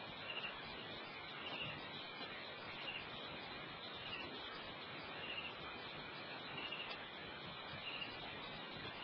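Night ambience: a steady hiss with a short, high chirp repeating evenly about every second and a quarter, the call of a small night animal.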